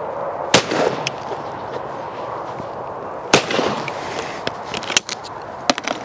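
Two shots from a Yildiz Pro 12-bore over-and-under shotgun at clays, about three seconds apart, each trailing a short echo. Then several lighter metallic clicks near the end as the gun is broken open.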